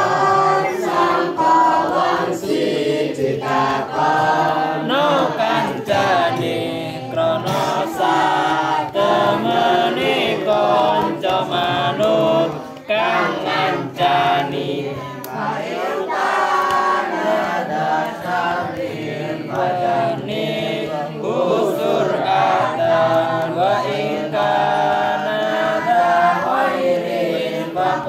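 A group of girls chanting together in unison, with phrases rising and falling and short pauses for breath; one voice is carried over a microphone and loudspeaker.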